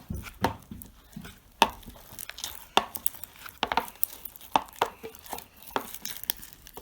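A spoon stirring thick, sticky slime in a container, knocking against its sides in irregular sharp clicks about one or two a second.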